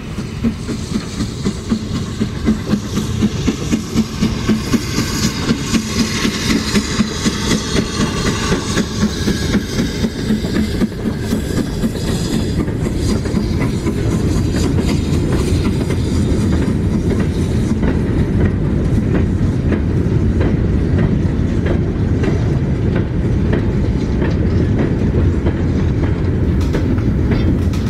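Steam locomotive running along rails, with a regular beat of two to three a second that becomes steadier about halfway through.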